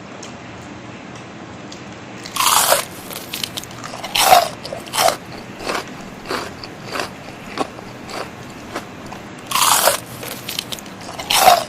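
Crunchy bites into crispy fried chicken, followed by chewing. Two loud rounds of crunching about seven seconds apart, each trailing off into smaller crunches.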